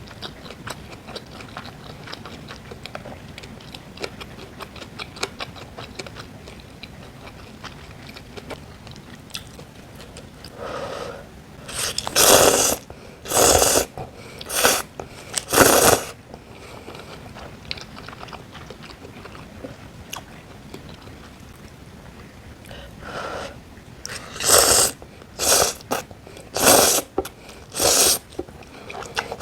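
Close-miked eating sounds: quiet chewing for the first ten seconds, then two runs of loud bites and mouth noises, one about halfway through and one near the end.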